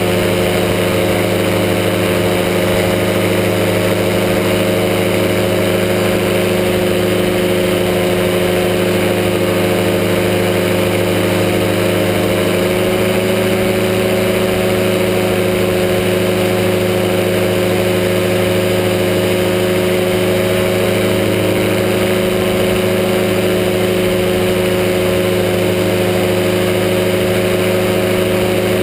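Powered parachute's engine and propeller running steadily at cruise in flight, heard from the pilot's seat, with a slight rise in pitch about halfway through.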